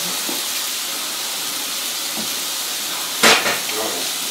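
Mushrooms and onions frying in a pan, a steady sizzle, with one short loud burst of noise a little over three seconds in.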